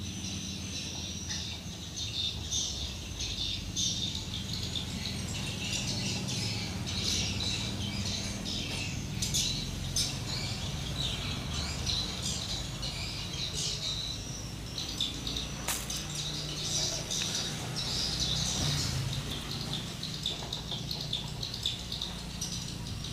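Birds chirping busily in the background, over a steady low hum, with one sharp click about sixteen seconds in.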